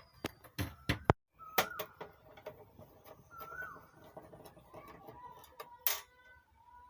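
Several sharp clicks and knocks from handling equipment, a cluster in the first second and a loud single click about six seconds in, with faint bird chirps in the background.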